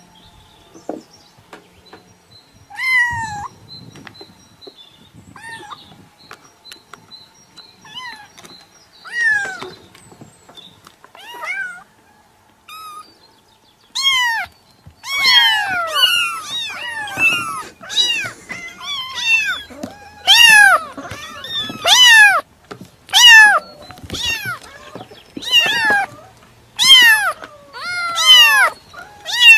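Cat meowing: a few high meows spaced a few seconds apart, then from about halfway a quick run of loud meows at about one a second.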